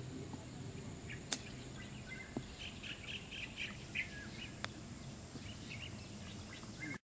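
Birds chirping, with a high steady hiss that stops about two seconds in. Two sharp clicks of golf club striking ball, one about a second in and one past halfway.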